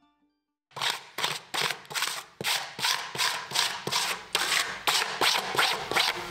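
Repeated scraping strokes of a tool working wet paint on a painting surface, about three strokes a second, starting about a second in.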